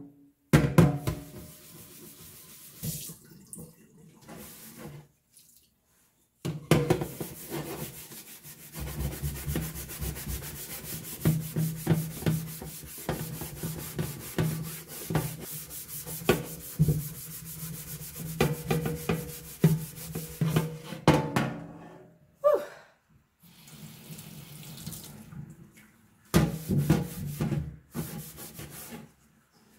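SOS steel-wool soap pad scrubbing a wet metal baking sheet in a stainless steel sink, working off baked-on grime softened by oven cleaner: rough, rapid back-and-forth scraping in long stretches, broken off abruptly a few times.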